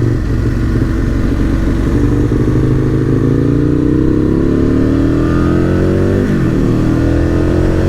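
Aprilia RSV Mille R's V-twin engine, through an aftermarket Akrapovic exhaust, pulling steadily up through a gear with its pitch rising. The pitch drops sharply about six seconds in, as at an upshift, then climbs again.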